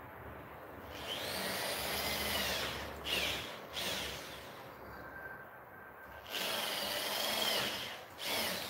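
Corded power drill working into a PVC window frame profile in two bursts of about two seconds each, its motor pitch rising and dipping as the trigger and load change, with short clicks between the bursts.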